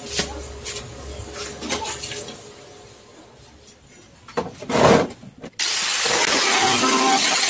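A short loud knock, then an angle grinder starts suddenly about two thirds of the way in and runs steadily and loudly, cutting into the plastic body of a child's ride-on toy car.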